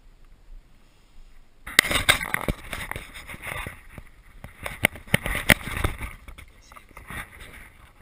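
Dry grass and brittle brush crackling and scraping against clothing and the camera as someone pushes through dense dry scrub on foot. It starts about two seconds in, with sharp snaps of stems among the rustling, and dies down near the end.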